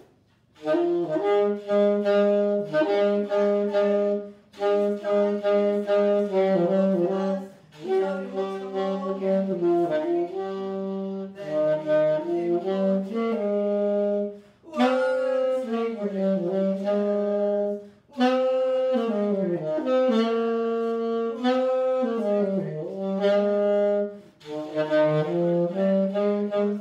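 A single wind instrument played solo, giving a slow melody in phrases of a few seconds with short breaks between them, a few notes sliding down in pitch.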